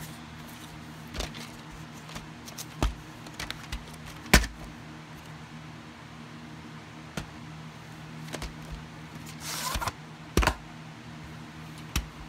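Plastic VHS clamshell case and cassette being handled: scattered clicks and knocks, the loudest a sharp knock about four seconds in, and a brief scraping rustle followed by a knock near ten seconds. A faint steady low hum runs underneath.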